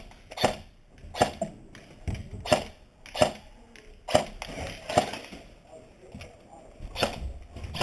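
A series of short, sharp knocks, roughly one every three-quarters of a second, with quieter movement noise between them.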